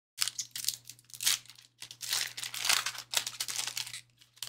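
Plastic wrapper of a Panini basketball card pack crinkling and tearing as it is ripped open and handled, in a series of crackly bursts.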